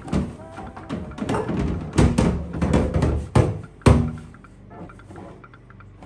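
Plastic refrigerator bin being washed and handled in a steel sink: hands rubbing the wet plastic and a series of hollow knocks as it bumps the sink, the loudest about two, three and four seconds in. After about four seconds it goes quieter.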